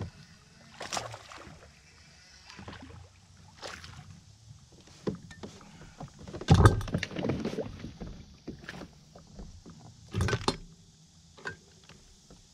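Scattered knocks and rattles of handling on a fishing kayak, with a louder jumble of knocks about six and a half seconds in as a small bass is swung aboard, and another short knock about ten seconds in.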